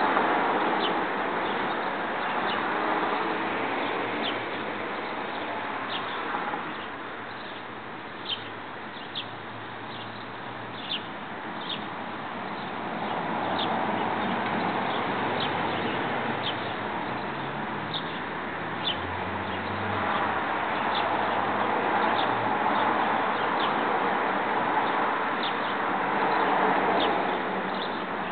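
Backyard ambience: small birds chirping in short, scattered notes over a steady rushing background noise that swells and fades.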